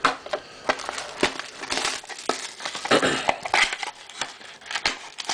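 Trading-card pack wrappers crinkling and rustling as packs are handled, with irregular crackles and light taps.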